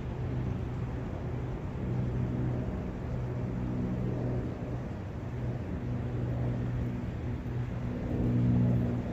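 Low engine drone from a distant motor vehicle or aircraft, holding a steady low pitch that fades in and out and swells near the end, over the steady rush of outdoor forest ambience.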